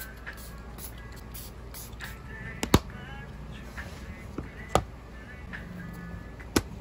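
Objects being handled on a desk, with three sharp taps as things are set down on the desktop, about a second and a half to two seconds apart, over faint background music.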